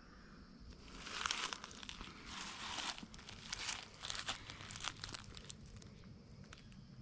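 Footsteps crunching through dry dead leaves and ground cover on the forest floor, a string of uneven steps from about one second in until about six seconds in.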